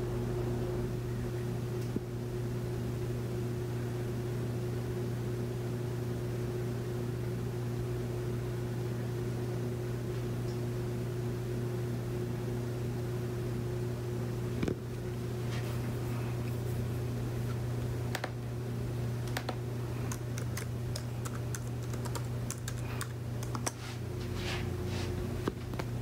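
Keys clicking on a 2011 MacBook Pro's keyboard, a quick run of presses while logging in at the login screen, from about halfway through. Under them is a steady low hum.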